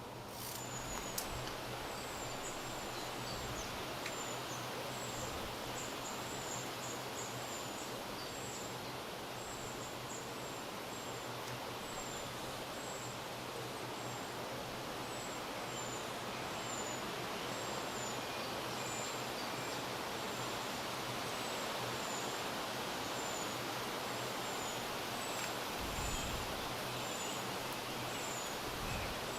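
Riverside ambience: a steady, even rush of background noise, with a small bird's short, high, thin call repeated about once a second throughout.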